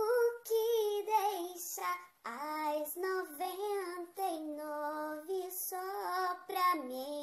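A gospel song sung by a high voice, with held notes that glide from one pitch to the next.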